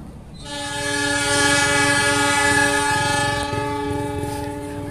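Diesel locomotive's air horn sounding one long, chord-like blast as the train approaches. It starts about half a second in and fades out near the end.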